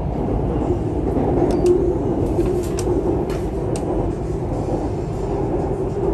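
BTS Skytrain car running along its elevated track, heard from inside the car: a steady low rumble with a droning hum and faint scattered clicks.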